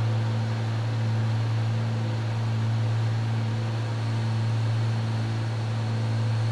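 The Cessna 310's twin piston engines and propellers running steadily, heard in the cockpit as a deep even hum under a hiss.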